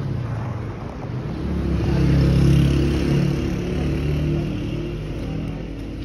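A motor vehicle's engine running close by, growing louder to a peak about two seconds in and then fading away, over a general street hum.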